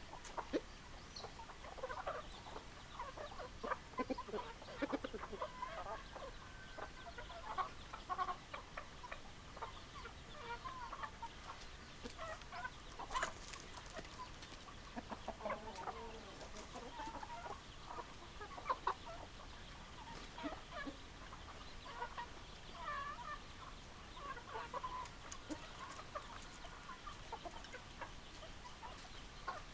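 A flock of hens clucking, with many short, overlapping calls all the way through.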